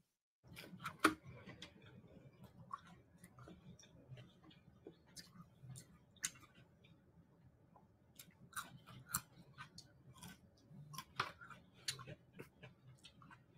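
Quiet, close-miked mukbang eating sounds: wet chewing with irregular mouth clicks and smacks, a few louder ones about a second in and in the last few seconds.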